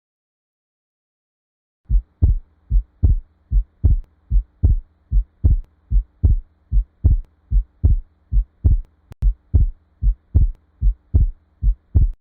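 Heart sounds heard through a stethoscope: short, low, evenly spaced thumps, about two and a half a second, starting about two seconds in, over a faint steady hum.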